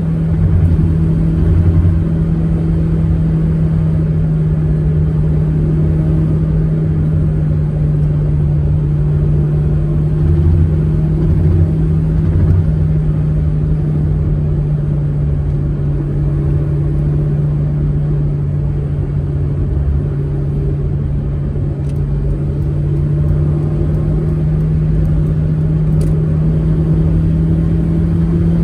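Manual Proton Saga driving at a steady cruise: an even engine hum held at nearly constant revs over low road and tyre rumble.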